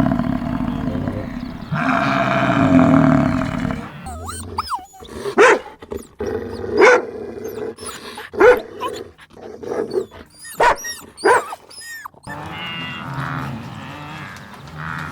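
Farm animals calling: a low drawn-out call at the start, then a run of short, sharp bark-like calls about every second and a half with high chirps around them, and lower calls again near the end.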